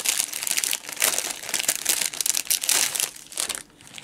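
Clear plastic packaging bags crinkling as they are handled, a dense crackle that dies down about three and a half seconds in.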